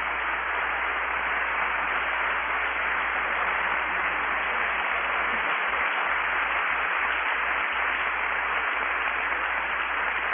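Congregation applauding in a long, steady round of clapping.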